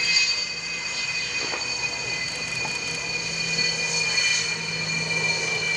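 Sukhoi Su-27's twin jet engines running with a steady high whine, several held tones over a rushing hiss.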